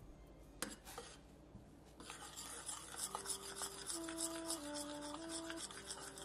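Metal spoon stirring and scraping oats around a saucepan of simmering oatmeal, a rapid scratchy rubbing that starts about two seconds in. A few soft held music notes come in over it a second later.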